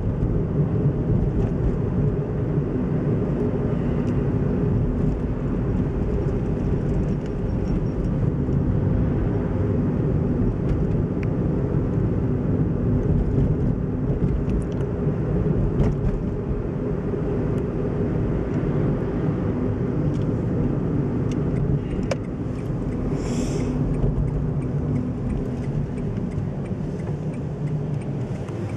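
Car engine and tyre rumble heard from inside the cabin while driving, steady throughout, with one brief high-pitched sound a little past two-thirds of the way through.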